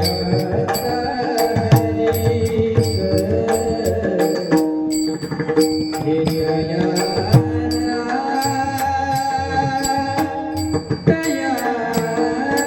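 Music: drums and sharp, bright percussion strokes keep an even rhythm under held tones and a gliding melodic line.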